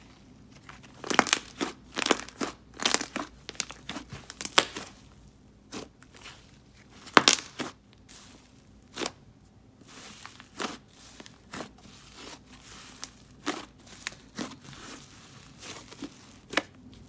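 Soft cloud-cream-textured clay slime being stretched, folded and squeezed by hand, making irregular sizzling crackles and small pops.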